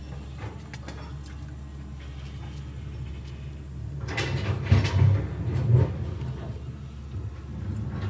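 Fingers rummaging in a plastic O-ring assortment box, a stretch of clattering and scraping about four to six seconds in, over a steady low hum.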